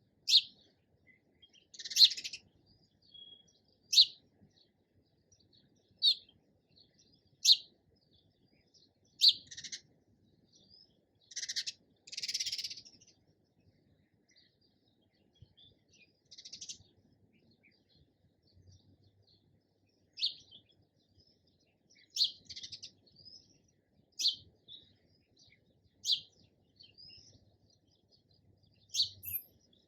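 Sparrow chirping: short, sharp chirps one at a time, every second or two, with a quieter stretch in the middle.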